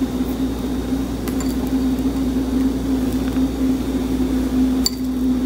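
A steady mechanical hum from a running kitchen appliance or fan, with a few faint taps and clicks as chopped green onions are picked off a plastic cutting board and dropped into a glass bowl.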